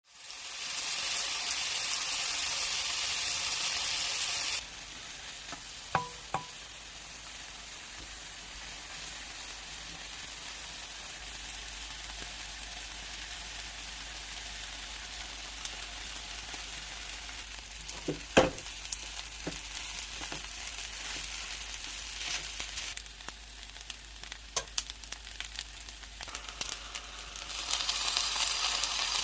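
Kimchi fried rice sizzling as it fries in a pan, with a few sharp knocks of a utensil against the pan. The sizzle is loudest for the first four or so seconds and swells again near the end.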